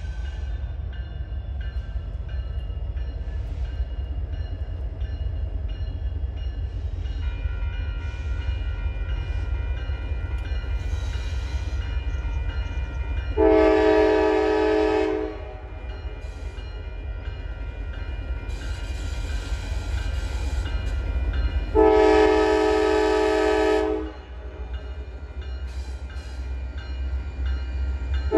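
Air horn of an approaching Union Pacific intermodal freight locomotive, sounding two long blasts of about two seconds each, some eight seconds apart, over a steady low rumble. These are the opening long blasts of the long-long-short-long grade-crossing signal.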